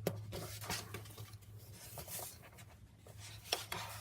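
Crisp, stiff sheets of Elephant Hide origami paper being handled and unfolded, giving irregular crackling rustles.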